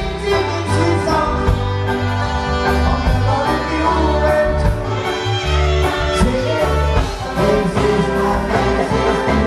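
Music with a singing voice, instruments and a steady beat over a strong bass line.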